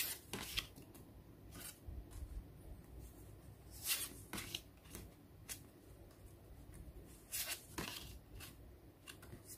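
Stiff paper postcards sliding against each other and rustling as they are flipped through one by one: about a dozen short swishes at irregular intervals, the loudest ones about four seconds in and near the end.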